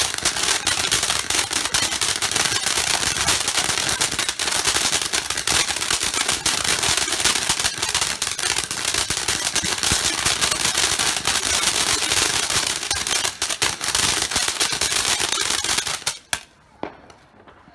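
Ground-level firework cake firing a rapid, dense barrage of crackling pops and bangs, then cutting off suddenly near the end with a few last pops.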